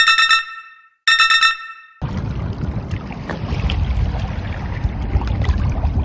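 A bright chime sound effect rung twice, each ring fading over about a second. Then wind buffets the microphone, a steady low rumble, with water washing at the rocky river edge.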